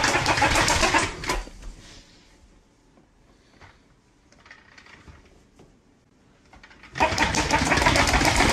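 Motorised toy bird running with a rapid mechanical rattle, loud for the first second and a half, then faint for several seconds, then loud again about seven seconds in.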